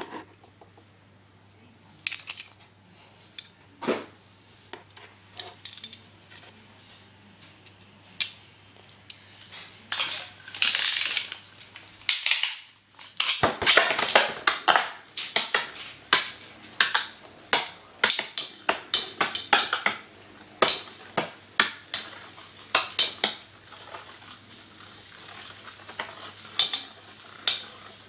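Metal-rimmed battle tops spinning in a plastic stadium, clacking against each other and the stadium wall in rapid, irregular metallic clicks that come thick and fast from about halfway in.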